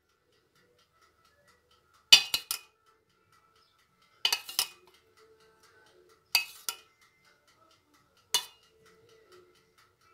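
Metal spoon clinking against a stainless-steel pot while scooping lemon syrup: a short cluster of sharp, ringing clinks about every two seconds, four times.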